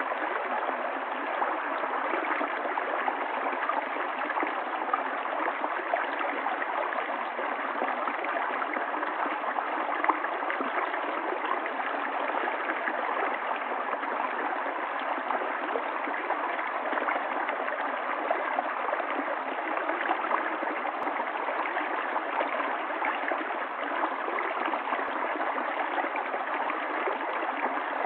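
Water of a stream running steadily, an even, unbroken sound with no pauses.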